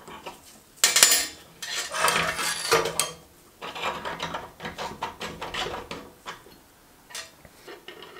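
Small metal parts clinking and scraping on a workbench as a steel rod and an Allen key are slid through aluminium brackets and 3D-printed plastic blocks to pin a fixture together by hand. Irregular clatter, loudest about a second in, then lighter clicks.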